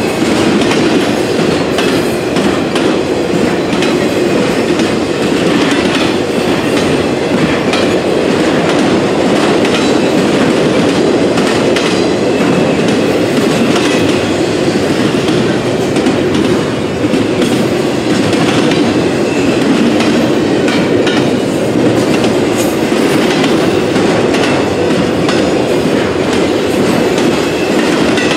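CSX intermodal freight train's double-stack well cars and trailer flatcars rolling past with a loud, steady rumble, the steel wheels clicking over the rail joints.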